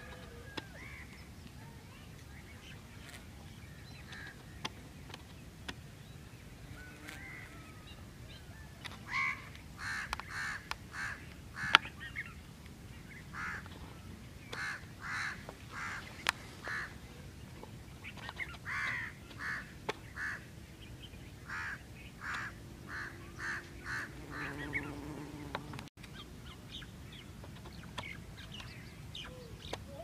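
Birds calling in runs of short, repeated notes, starting about a quarter of the way in and going on until near the end, over a steady low background hum.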